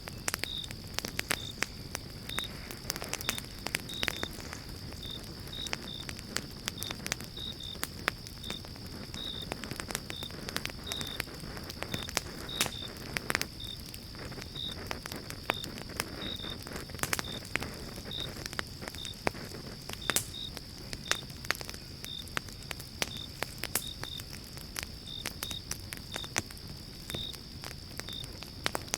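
Wood fire crackling, with frequent sharp irregular pops over a low rumble of burning. A cricket chirps steadily in the background, short high chirps about twice a second.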